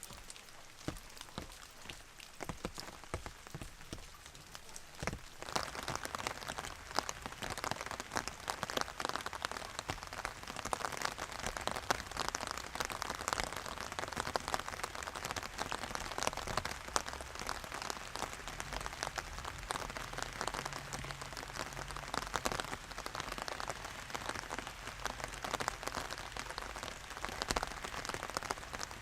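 Steady rain falling, with many single drops tapping on a surface. About five seconds in it becomes heavier and denser.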